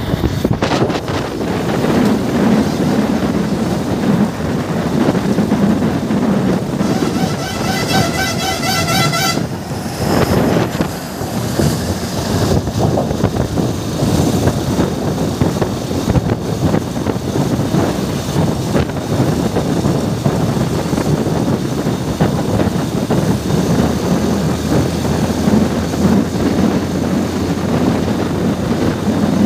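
Steady road and wind noise from a vehicle crossing a steel truss bridge deck, with wind buffeting the microphone. About seven seconds in, a vehicle horn sounds a rapid run of pulsing toots for about two and a half seconds.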